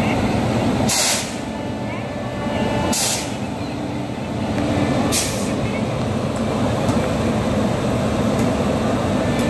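Electric locomotive standing with its onboard machinery running in a steady loud hum. Three short hisses of released air come about one, three and five seconds in.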